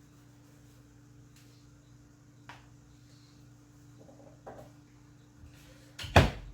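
A few faint handling clicks over a steady low electrical hum, then a single loud knock about six seconds in.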